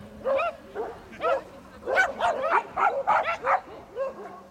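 A dog barking repeatedly in short, high-pitched yipping barks, about a dozen, coming fastest in a quick run in the middle.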